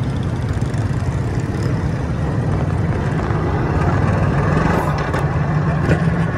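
Motorcycle engine running steadily while under way, a low hum that grows slightly louder about four seconds in.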